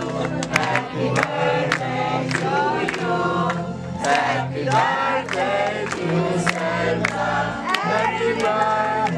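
A group of people singing together and clapping in time, about two to three claps a second.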